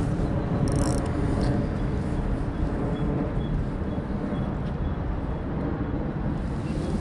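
Steady low rumble of outdoor background noise, with a brief high hiss a little under a second in.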